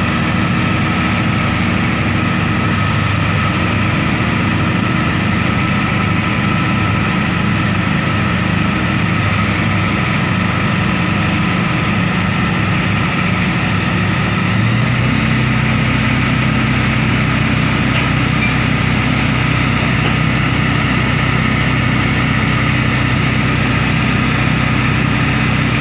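Heavy diesel engine of a crawler crane running steadily while it works its hook. About fifteen seconds in, the engine note changes abruptly and settles into a steadier, deeper, even hum.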